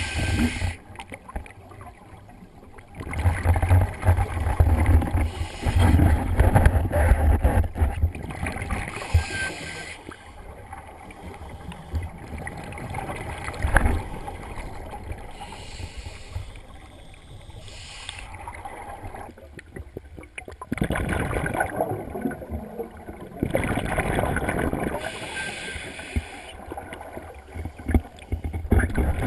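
Scuba diver's breathing through a regulator, recorded underwater: several gurgling bursts of exhaled bubbles a few seconds long, with quieter stretches between.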